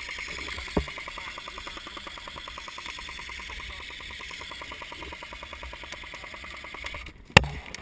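Airsoft guns firing: a rapid, even rattle that runs on for several seconds. A single sharp, loud snap comes near the end.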